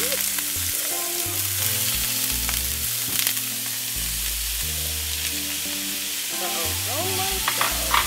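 Diced onions, red peppers and diced meat sizzling in hot olive oil in a frying pan as they are sautéed and stirred with a spatula.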